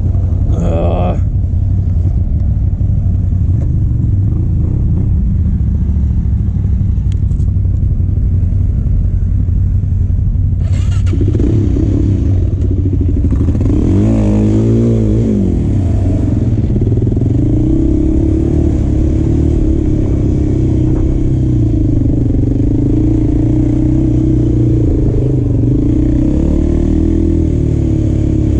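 Motorcycle engine running steadily and loud, its pitch rising and falling briefly about halfway through.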